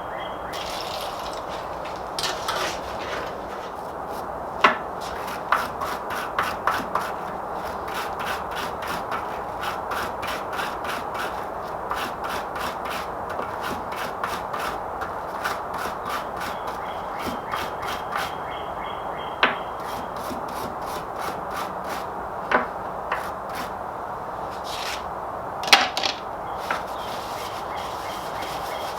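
Quick back-and-forth scrubbing or rubbing strokes by hand on a metal part, cleaning it down before a hole is patched, with a few sharper knocks now and then.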